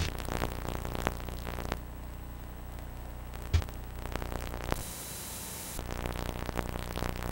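Steady electrical hum and faint hiss with no programme sound, a few faint clicks and one short low thump about three and a half seconds in: the recording's noise floor.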